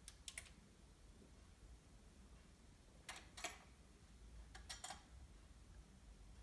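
Pairs of sharp mechanical clicks from a Kenwood KP-2022A turntable being operated, three pairs in all, roughly a second and a half to three seconds apart, over a faint low hum.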